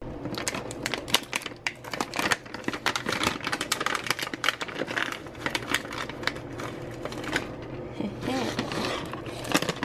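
Crinkling and rustling of a plastic cat-treat pouch being handled and opened, with treats tipped out: a dense run of irregular crackles and small clicks.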